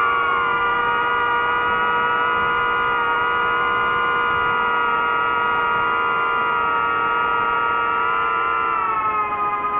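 Quadcopter drone's motors and propellers whining steadily in flight, several close tones at once. The pitch dips slightly about nine seconds in as the motors ease off.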